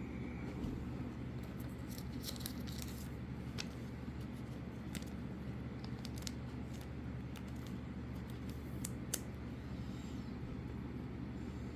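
Trading cards and their plastic sleeves being handled: scattered light rustles and clicks, busiest a couple of seconds in and again near the end, over a steady low background hum.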